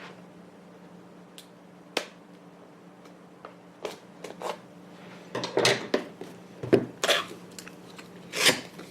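Scissors clicking and snipping at a cardboard box's seal, with a few separate clicks at first. From about five seconds in, a dense run of crackling and rustling follows as the cardboard and paper packaging are handled.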